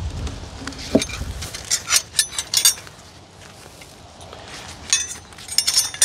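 A metal hive tool clinking and scraping against the wooden hive box and frames in quick clusters of sharp clicks. Wind rumbles on the microphone for the first second or so.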